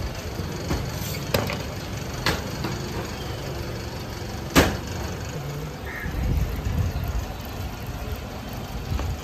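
A knife chopping down through stacks of samosa pastry sheets, giving a few sharp knocks on the wooden board, the loudest about halfway through, over a steady low rumble.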